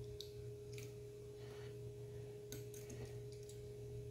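A few faint clicks of alligator clips and wires being handled, over a steady low hum and a thin steady tone.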